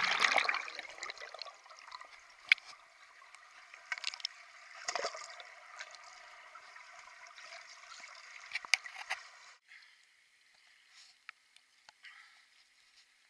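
Pool water sloshing and gurgling around the camera at the waterline, with scattered sharp clicks and splashes, busiest about 4 to 5 seconds in and again near 9 seconds. It drops away to faint ticks about ten seconds in.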